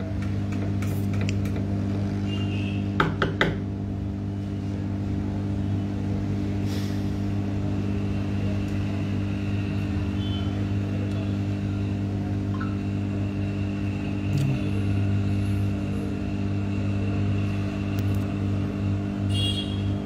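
SMD hot-air rework station blowing steadily with a low hum while heating the solder on a phone's charging-port connector. A couple of sharp clicks come about three seconds in.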